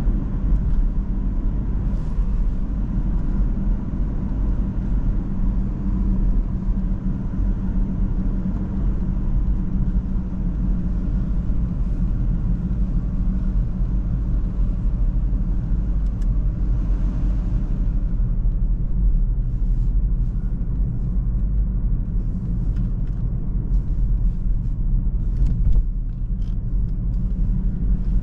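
Cabin noise of a 2017 BMW 116d on the move: its 1.5-litre three-cylinder turbodiesel running under steady load, with tyre and road rumble, as a constant low hum. A few faint light clicks come in the second half.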